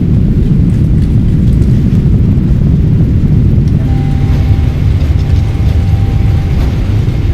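Boeing 777-300ER's GE90-115B engines at takeoff thrust during the takeoff roll: a loud, steady low rumble, with faint steady tones coming in about four seconds in.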